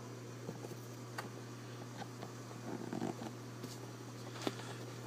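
Scattered light clicks and taps from handling the deadbolt and the vise fixture, over a steady low hum.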